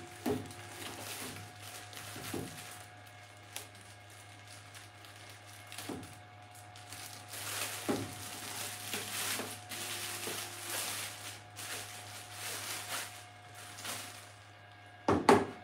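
Clear plastic packaging bag crinkling and rustling as a white plastic resin wash station is unwrapped and handled, with scattered light knocks and clicks of the unit. A louder burst of rustling comes near the end.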